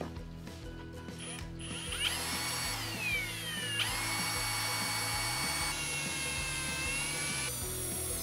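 Ridgid cordless drill boring through the aluminium frame of a solar panel. Its motor whine starts about two seconds in, drops in pitch as the bit bites, then holds steady.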